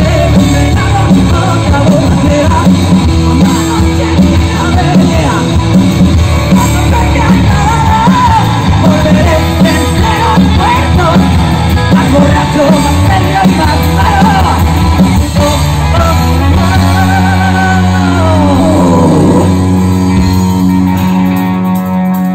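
Rock band playing live through a loud festival PA: electric guitars, bass, drums and a singing voice. Late on, a long falling pitch glide sweeps down over a sustained chord as the song rings out.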